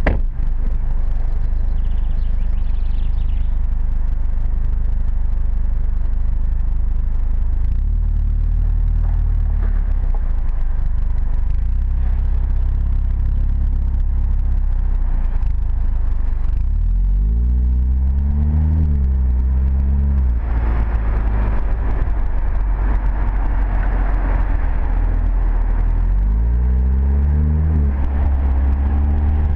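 Audi TT-S turbocharged 2.0-litre four-cylinder exhaust, heard from the rear of the car. It runs at low, steady revs, then climbs in pitch as the car accelerates, about halfway through and again near the end. A rushing noise of wind and tyres fills the second half.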